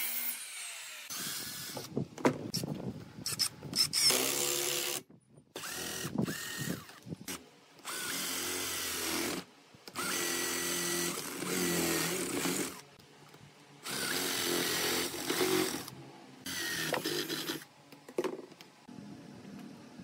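A cordless drill running in repeated short bursts of one to three seconds, drilling into wooden chair parts, with sharp knocks and clatter in between.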